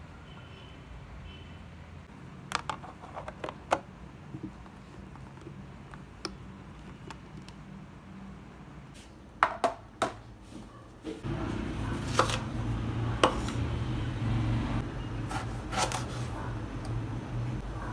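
Silicone spatula scraping sticky syrup and banana slices from a pan into a plastic food container, with light clicks, then a plastic lid snapped on with a few sharp clicks about nine to ten seconds in. From about eleven seconds a steady low hum sets in, under a knife cutting an eggplant on a wooden cutting board, each stroke a sharp tap.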